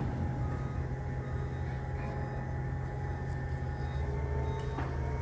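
Heavy construction machinery engine running steadily: a low, even drone with a faint steady whine above it.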